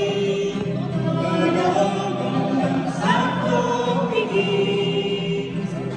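Church choir singing, several voices holding long notes that shift in pitch.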